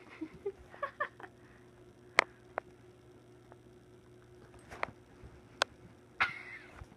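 A kitten pouncing on and scrabbling at a fabric pillow on carpet: scattered light scuffles, rustles and sharp ticks, with a cluster of short squeaky sounds about a second in and a longer rustling scuffle just after six seconds. A faint steady hum runs underneath.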